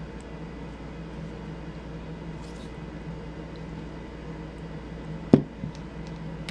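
Steady low background hum, with one sharp knock about five seconds in as a pillar candle is set down on a tabletop.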